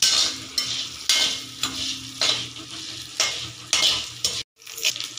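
Flat metal spatula stirring and scraping shallots, garlic and curry leaves frying in oil in a kadai, with sizzling, the strokes coming about twice a second. The sound drops out briefly near the end.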